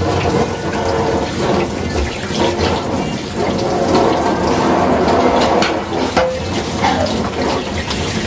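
Tap water running steadily into a stainless steel kitchen sink while dishes and a wooden utensil are rinsed and scrubbed under it, with a few light knocks of items against the sink.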